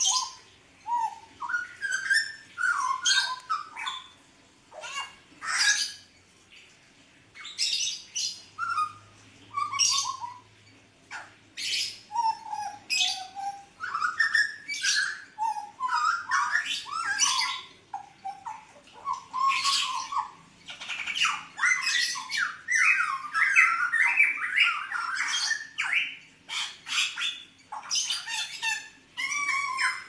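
Caged pied butcherbird (jagal Papua blorok) singing: short fluty whistled notes and slides mixed with harsh, squawking calls, coming in bursts with brief pauses and running more densely in the second half.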